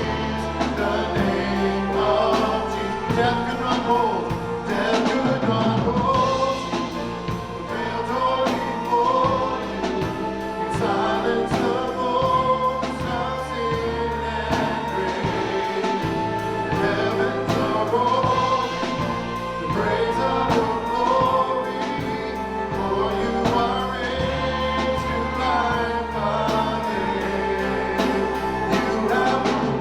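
Church worship music: a group of singers with a band, held bass notes changing every few seconds under a steady drum beat.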